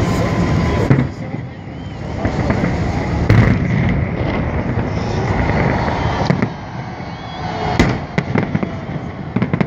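Holiday fireworks salute going off: a series of loud booms spread a few seconds apart, with a run of smaller crackling reports near the end, over a rumbling background and the voices of onlookers.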